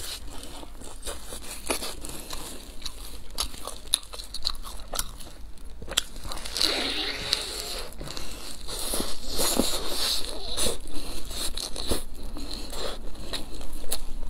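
Close-miked eating: biting into and chewing a pan-fried stuffed flatbread, with soft crunches of the crisp crust and wet mouth clicks, getting busier and louder in the second half.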